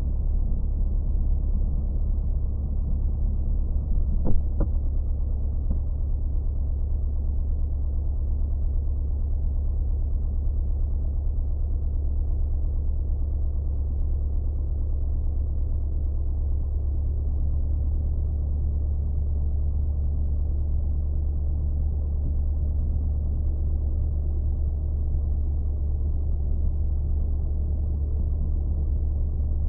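Light single-engine propeller airplane's engine running steadily at low taxi power, a deep, muffled drone with no change in pitch. A single sharp click about four seconds in.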